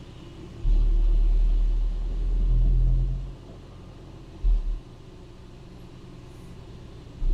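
2017 Hyundai Elantra engine being brake-torqued in gear: a deep rumble that surges for about two and a half seconds, then briefly again near the middle and once more at the end. It is a test for a slight knocking noise from the intake camshaft side of the valvetrain, which the technician finds is still there.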